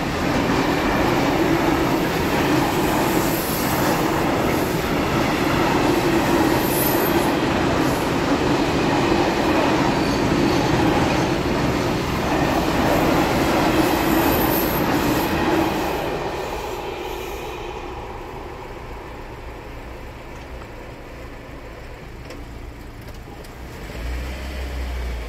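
Freight train of open-top wagons rolling through a level crossing: steady wheel-on-rail rumble and clatter with a few brief high wheel squeals, fading away after about sixteen seconds as the last wagon passes. Near the end a low car engine rumble comes in.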